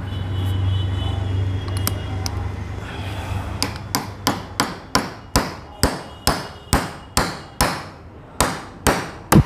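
Hammer blows on a tubular steel drift, driving the bearing into the pinion housing of a Mahindra Scorpio's power-steering rack: about fifteen sharp strikes, two to three a second, starting about three and a half seconds in. Before them there is a steady low hum.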